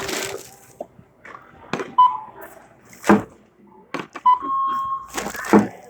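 Checkout barcode scanner beeping as items are scanned: a short beep about two seconds in, then a short beep and a longer held beep a little past four seconds. Around them come rustling and knocks of goods and bags being handled, the loudest a rustle at the start and knocks about three and five and a half seconds in.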